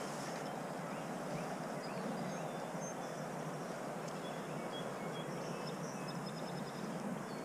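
Steady rush of wind and river water, with faint bird chirps high above it.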